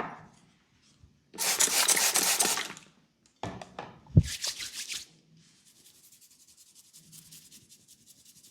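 Hands rubbing briskly over hair and scalp during a head massage, in two scratchy bursts, with a dull thump about four seconds in.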